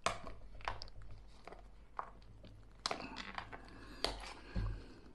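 Cellophane shrink wrap crinkling and tearing as it is peeled off a cardboard trading-card box: irregular sharp crackles, with a soft low bump near the end.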